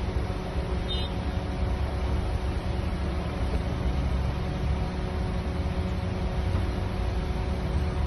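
Steady low rumble and hiss with a faint, even hum over it, like outdoor vehicle or traffic noise.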